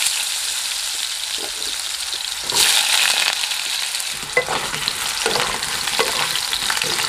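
Potato chunks sizzling in hot oil in a kadai, with a fresh surge of sizzling about two and a half seconds in. From about four seconds in, a spatula stirs them, adding light clicks and scrapes against the pan.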